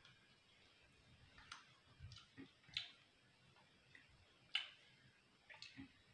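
Faint, sparse crackles and snaps of a crisp fried papad being broken and pressed by fingers, the loudest snap about four and a half seconds in.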